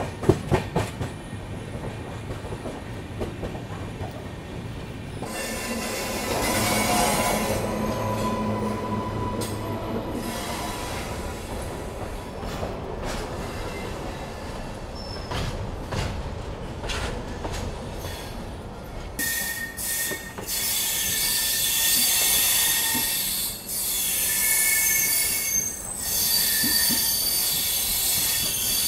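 Passenger train wheels clicking over rail joints and points, then squealing against the rails as the coaches take curving track, heard from an open coach door. The squeal grows louder and higher in the last third, with several shrill tones sounding at once.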